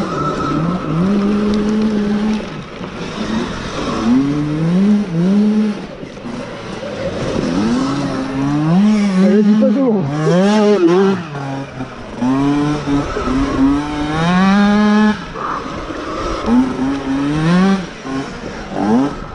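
Sur-Ron 7 kW electric dirt bike's motor whining, its pitch rising as the throttle opens and dropping back as it closes, over and over, over a steady hiss.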